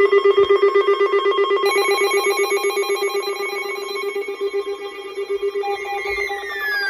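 Electronic weather-alert alarms sounding: a fast-pulsing beep with a second set of steady tones joining about two seconds in, and a falling tone near the end.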